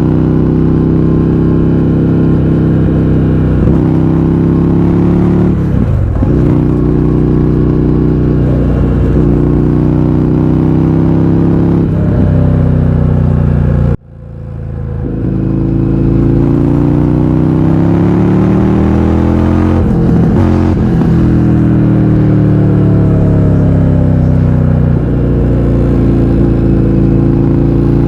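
Indian FTR 1200's V-twin engine through a baffle-less Akrapovic exhaust, pulling hard and shifting up through the gears, with short dips in pitch at each shift. About halfway through the sound drops out suddenly, then builds back up as the engine accelerates again.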